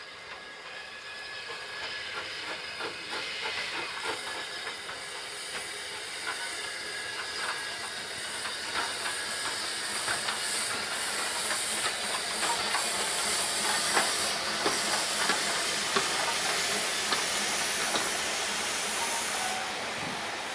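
Steam tank locomotive drawing near and passing with a train of coaches: steam hiss and uneven exhaust beats growing louder through the first half, then the coaches rolling past.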